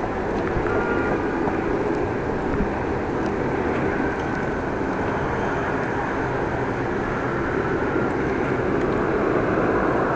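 Steady wind rush and tyre rumble from riding a bicycle, picked up by a chest-mounted action camera's microphone.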